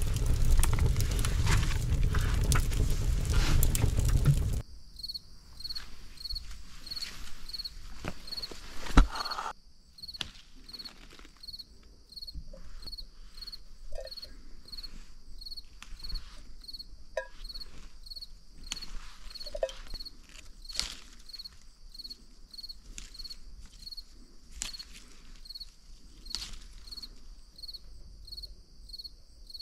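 For the first few seconds a wood fire crackles loudly in an iron stove. Then crickets chirp in a steady, regular rhythm, with scattered clicks and knocks from handling and one sharp thump about nine seconds in.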